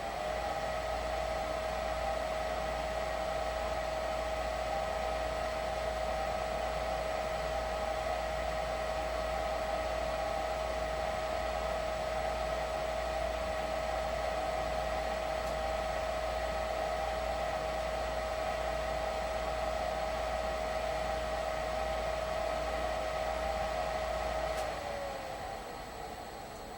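Lennox furnace fan motor spinning up with a rising whine, then running steadily with a hum and rushing air for about 25 seconds before winding down, its pitch falling as it stops.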